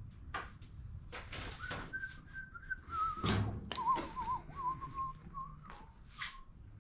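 A person whistling a wandering tune, one thin wavering note line that drifts down in pitch over about four seconds. Short knocks and rustles from handling things on a workbench come in between.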